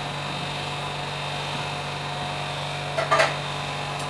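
Steady hum of a kitchen range hood fan, with a few fixed tones above it. About three seconds in comes a brief, sharp clatter.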